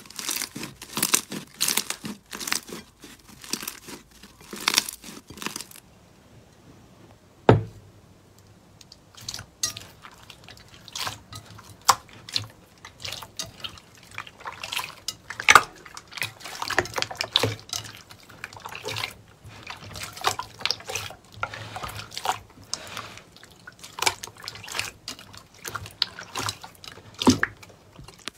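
Hands squishing slime in a glass bowl. For the first six seconds, dense crackling pops as fluffy slime is pressed. After a short lull and a single thump, there is wet squelching and dripping as hands squeeze and scoop a runny slime.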